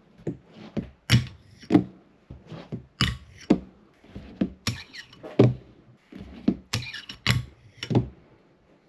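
Wooden fingerboard being popped and landed in flip tricks: a run of sharp, short wooden clacks, often in pairs, as the tail snaps down and the board lands back on its trucks.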